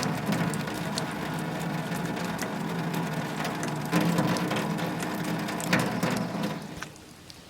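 Steady rain falling, with scattered sharp drops, fading down near the end.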